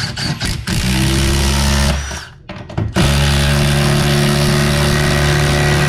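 Milwaukee M18 Fuel impact driver hammering a 3/8 inch, 5 inch long lag bolt into a wooden stud. A few short stutters come first, then a steady hammering run of about a second, a pause of about a second, and a second, longer hammering run as the bolt is driven home.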